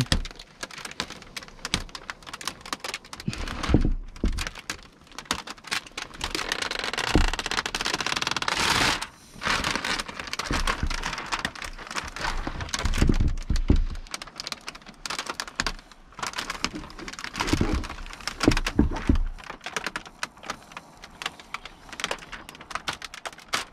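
Old window tint film crackling and ticking as it is peeled off the glass after steaming, a dense run of small irregular clicks as the film and its adhesive let go.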